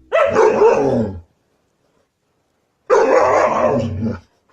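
A dog vocalizing twice, each a drawn-out call of about a second whose pitch wavers, with a silent pause of nearly two seconds between them.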